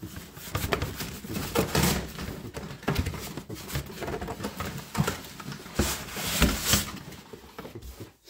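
Cardboard shipping box being opened and handled: scraping and rustling of cardboard and packing, with a few knocks. It is loudest about two seconds in and again around six to seven seconds in.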